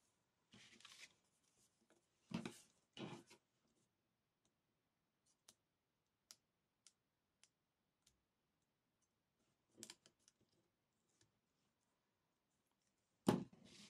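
Paper, tape and small craft tools being handled on a cutting mat: soft paper rustling, two short louder scrapes about two and three seconds in, scattered light ticks, and another louder rustle near the end.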